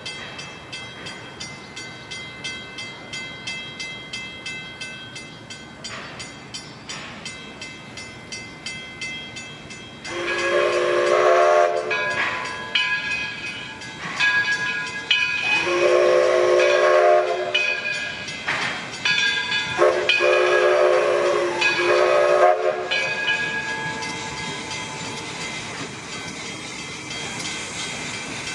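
Steam locomotive sounding its chime whistle in four blasts, the first two long and the last two shorter, after about ten seconds of a steady rhythmic beat from the running engine.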